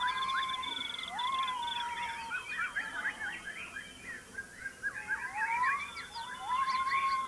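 Many birds chirping and calling at once, with short sweeping notes overlapping. A rapid high trill runs through the first couple of seconds, and several rising whistled notes level off and hold.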